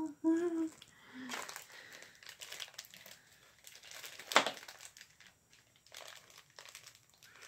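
Small clear plastic bag crinkling as it is handled and worked open by hand, with one louder sharp crackle about four and a half seconds in.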